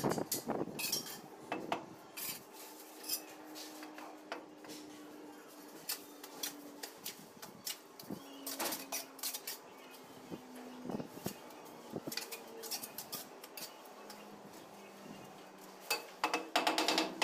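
Steel tiling trowel scraping and clinking against ceramic tile and cement mortar in scattered light clicks, with a run of quicker, louder knocks near the end.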